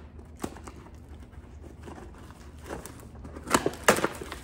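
Small cardboard mail box being opened and handled by hand: scattered rustling and scraping of cardboard and packing, with a sharp click about half a second in and a few sharp snaps near the end.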